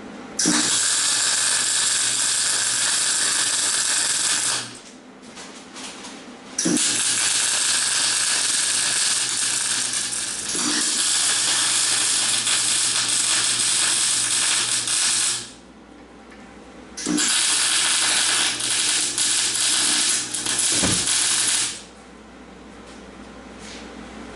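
MIG welder with shielding gas running three welds on steel, a steady crackling sizzle over a low electrical hum. The runs last about four, nine and five seconds, each starting and stopping sharply with short pauses between.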